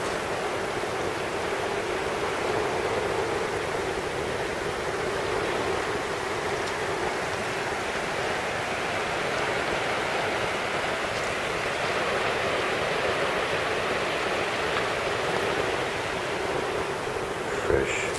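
River water rushing steadily past a gravel bar: a constant, even hiss.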